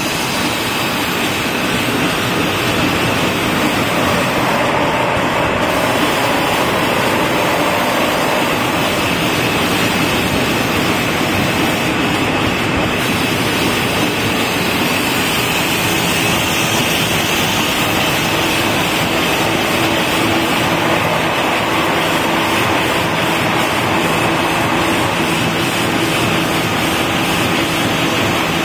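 Fully servo-driven high-speed V-fold tissue wrapping machine running steadily at its set speed of 150 packs a minute: a loud, continuous mechanical noise with a faint steady high whine.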